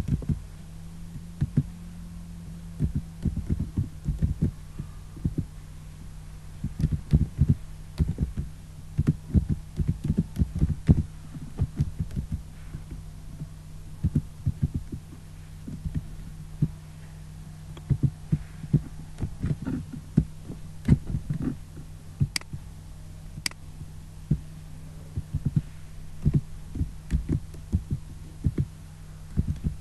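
Computer keyboard typing in irregular bursts of keystrokes, heard mostly as low thumps, over a steady low electrical hum.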